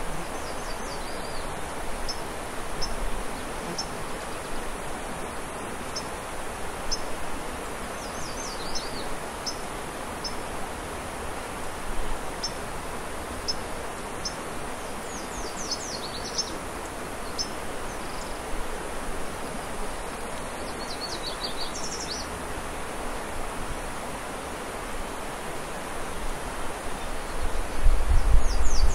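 Steady rushing outdoor background noise with small birds chirping: repeated high chips and a few short falling trills. Near the end, a low rumbling noise comes in and the level rises.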